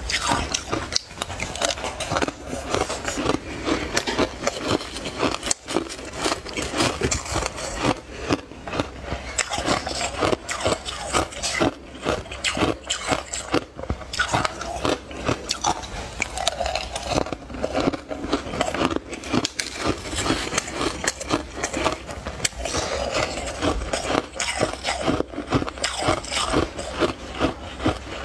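Fluffy crushed ice crunching as it is bitten and chewed, close to the microphone, in a dense run of crisp crackles.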